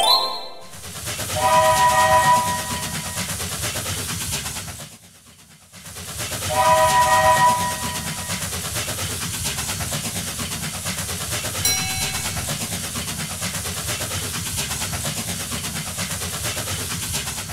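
Cartoon steam-train sound effect from a children's letter-tracing app. It is a steady chugging with a steam whistle blown twice, once near the start and again about seven seconds in, and a brief break around five seconds.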